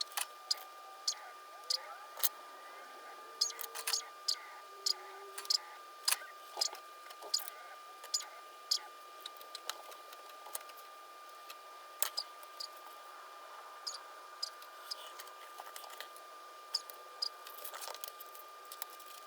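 Irregular small clicks and taps of small plastic toy parts and wires being handled, sometimes in quick clusters, over a faint steady high tone.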